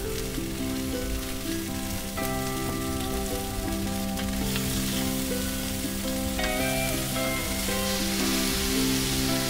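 Burger patties sizzling on a flat-top griddle, the hiss growing stronger about halfway through, under background music of steady held chords that change every couple of seconds.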